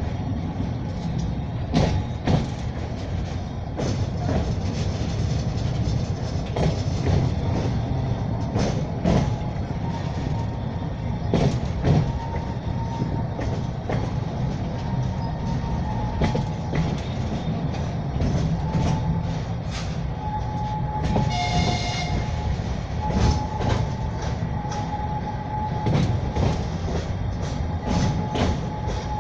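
Narrow-gauge children's railway train running, heard from aboard: a steady rumble with the wheels clicking over rail joints. A short horn blast sounds about two-thirds of the way through.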